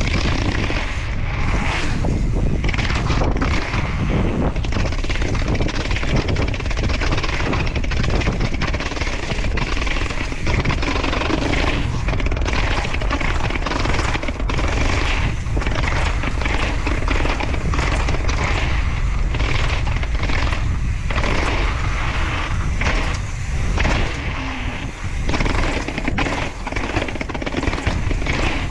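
Mountain bike clattering down concrete stairs: a rapid run of knocks and rattles as the tyres, frame and chain hit step after step, with wind rumbling on the action-camera microphone.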